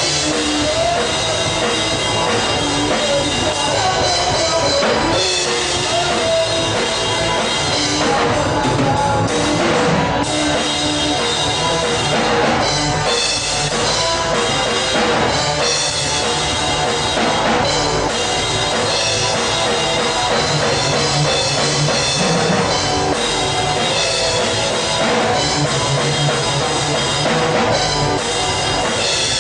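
Live rock band playing with a drum kit driving the beat and guitars, without vocals.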